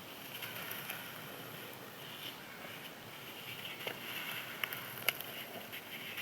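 Crispy dried sand crumbling: a continuous fine crunching and crackling, with a couple of sharper snaps late on.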